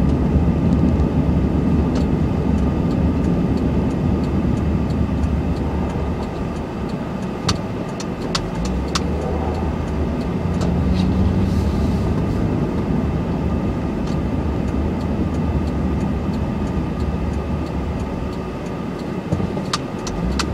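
Honda Ridgeline's V6 engine running at low speed while towing a trailer of about 3,000 pounds, heard from inside the cab as a steady low hum. A few sharp clicks or knocks come through now and then.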